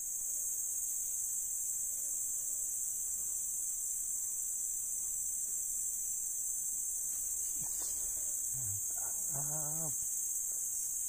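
Steady, high-pitched shrilling of a forest insect chorus, with a person's voice making a short sound about nine seconds in.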